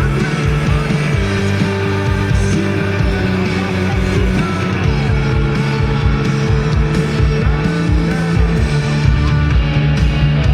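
Rock band playing: guitars over a bass line and a regular drum beat, dense and loud.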